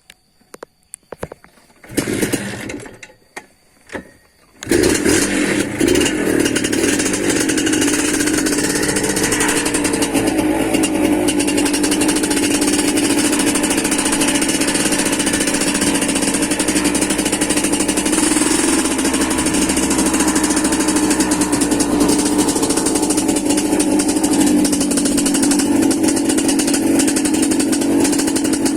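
Suzuki TS 125's two-stroke single-cylinder engine starting: a short sputter about two seconds in and a pop, then it catches just under five seconds in and idles steadily through its exhaust.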